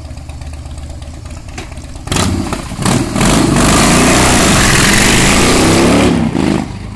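Harley-Davidson Breakout's V-twin with Vance & Hines exhaust idling, then revving sharply about two seconds in as the bike pulls away. It accelerates hard and loud for about three and a half seconds before the sound drops off abruptly near the end.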